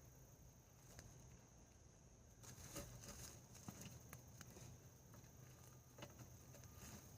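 Near silence with a few faint scattered clicks and rustles of sweet potatoes being dug out of bed soil.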